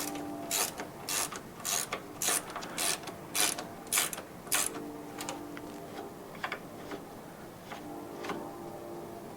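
Hand ratchet clicking as it drives a screw into the mower's plastic cable housing: about nine sharp clicks, roughly two a second, then a pause and a few fainter clicks near the end, over a faint steady hum.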